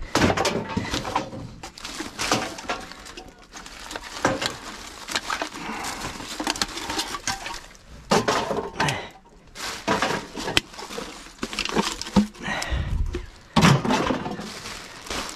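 Plastic garbage bags crinkling and rustling as rubbish is shifted by hand, with irregular clatters of cans and bottles among the trash.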